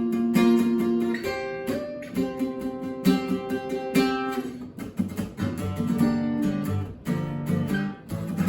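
Acoustic guitar played alone, strummed and picked chords with the chord changing every second or so, and the lower strings coming forward from about five seconds in.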